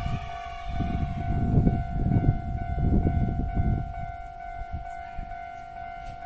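Japanese level crossing warning bell ringing steadily while a Keio Inokashira Line 1000 series electric train passes over the crossing. The train's wheels rumble loudest in the middle seconds, then fade away.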